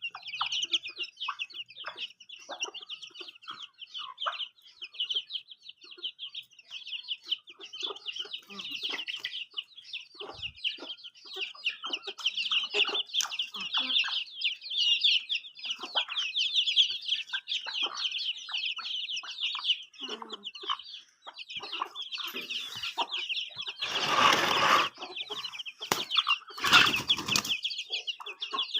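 A brood of baby chicks peeping in rapid high chirps, with a hen's lower clucks mixed in. Two short bursts of noise come near the end.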